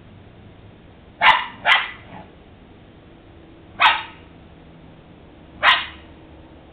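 A dog barking at a squirrel up a tree: four short, sharp barks, two in quick succession about a second in, then one near four seconds and one near six.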